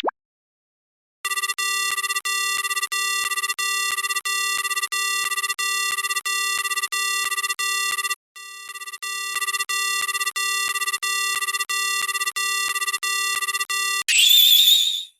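Japanese railroad crossing warning bell ringing in a repeating electronic ding, about three strikes a second, with a short break about halfway before it starts again. Near the end, a brief bright, wavering sound effect.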